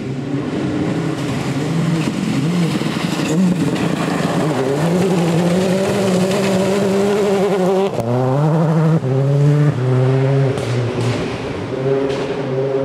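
Rally car engine running hard at high revs. About two-thirds of the way in there is a sharp click, then the engine accelerates through several quick upshifts, its pitch climbing and dropping with each change.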